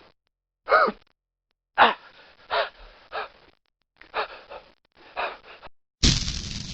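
A person panting: a series of short voiced gasps with pauses between them, several falling in pitch. Near the end a different, sudden loud rush of noise begins and slowly fades.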